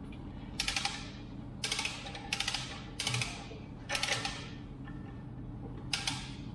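Pressure washer lance fired in six short bursts, each a sharp hissing spray of water onto the mini excavator, with a steady low hum underneath.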